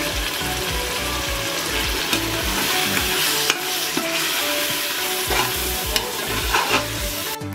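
Mutton masala sizzling as it fries in a pressure cooker while a metal ladle stirs the spice powders in, with a few sharp clinks of the ladle against the pot.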